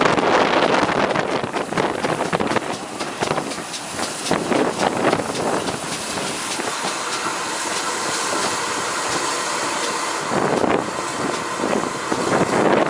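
A train passing on the line, with steady rumbling wheel-and-rail noise and many short clicks.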